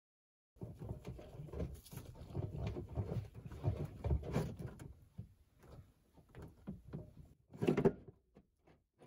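A Hotpoint washing machine's drive motor being worked loose by hand from its mounting on the plastic tub. Its metal housing scrapes and knocks against the tub, busy at first and then in a few separate knocks, with one louder clunk near the end.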